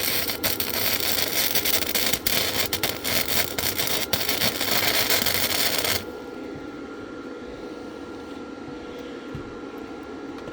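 Lincoln flux-core wire-feed welder's arc crackling steadily while welding steel, stopping abruptly about six seconds in. After that only a quieter steady hum is left.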